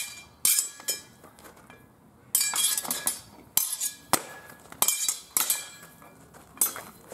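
Steel swords and bucklers clashing in sword-and-buckler sparring: sharp ringing clangs, a couple near the start, a rapid flurry a couple of seconds in, then single clangs every half second or so until near the end.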